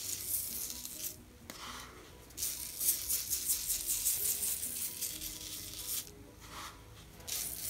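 Granulated sugar sprinkled by hand onto paper, the grains making a fine, sandy patter. It comes in spells, with two short pauses about a second in and about six seconds in.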